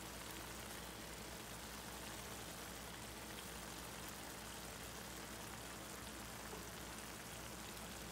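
Egusi stew sizzling and simmering in a stainless steel pan on the stove: a steady, faint hiss.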